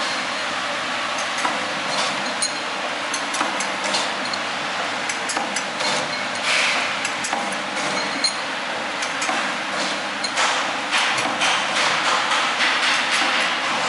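DXD-50KB back-seal stick packing machine for salt or sugar running: a steady mechanical clatter with frequent irregular clicks and knocks, which grow denser about ten seconds in.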